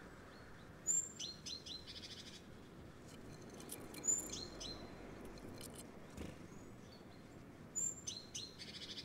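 A blue tit calls three times, about three seconds apart. Each phrase is a thin high note, then a few lower notes and a quick buzzy trill.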